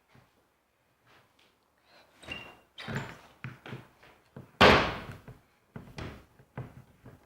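An irregular series of knocks and clunks from a broken electric drill being struggled with to take it apart, as it and tools are knocked against it and the work surface. The loudest bang comes a little past halfway.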